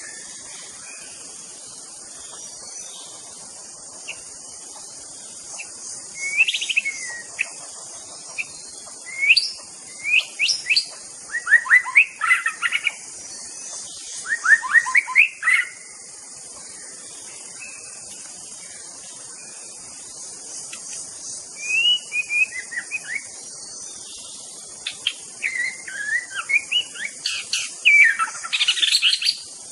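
White-rumped shama (murai batu) singing: several bursts of quick, varied whistled and chirping phrases with pauses between them, over a steady high hiss.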